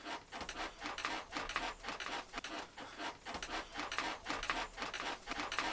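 Hands rubbing ointment into skin on a person's back: quiet, regular rubbing strokes, several a second.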